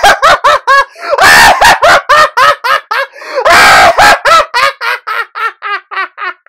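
Maniacal, cackling laughter: a rapid string of loud ha-ha bursts, about four or five a second, with two harsher shrieking stretches about one and three and a half seconds in. The laughter tapers off quieter toward the end.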